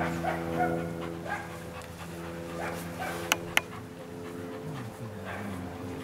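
German Shepherd Dog panting and giving short whines while heeling, with two sharp clicks a little past halfway. A steady low hum runs underneath.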